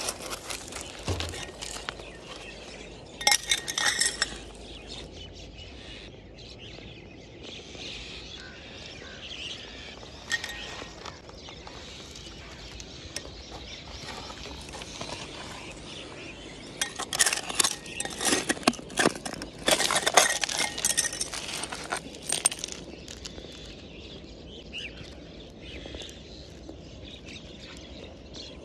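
A metal putty-knife scraper rakes and scrapes through loose river pebbles and gravel, the stones clinking and rattling against each other. There is a short bout a few seconds in and a longer one past the middle.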